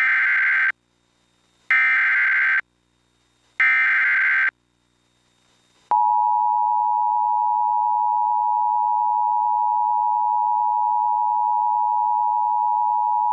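Emergency Alert System alert opening: three short bursts of SAME digital header data, each just under a second and about a second apart, then a steady attention tone starting about six seconds in.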